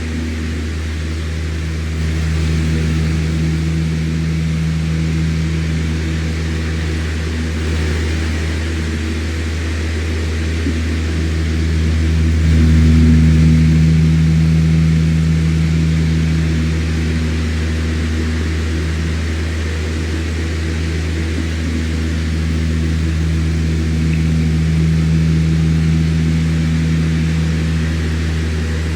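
Electric fan running steadily: a low motor hum with several steady tones over an even rush of air, swelling slightly in loudness a couple of times.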